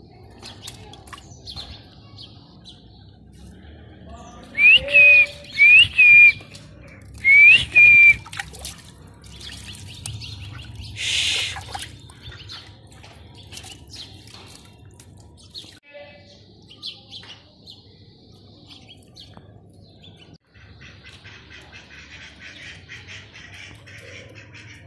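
Bird calls: four loud, high, whistled chirps, each with a quick upward hook, come in quick succession from about five to eight seconds in. Around them is the splashing and paddling of ducks in a shallow pool of water, with a short louder rush of water just after eleven seconds.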